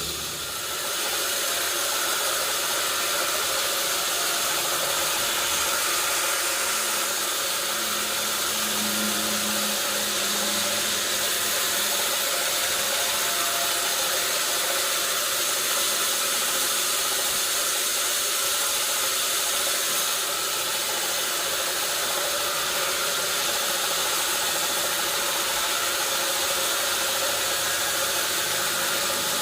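Sawmill machinery running: a steady, even noise that holds at one level throughout.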